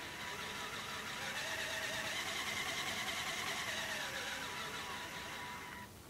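The LEGO backhoe loader's two small electric motors running the model's pneumatic pumps: a steady whir whose pitch rises a little and then sags, cutting off shortly before the end.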